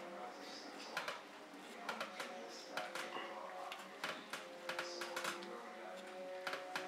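A knife cutting through a sandwich on a ceramic plate, with irregular light clicks and scrapes of the blade against bread and plate.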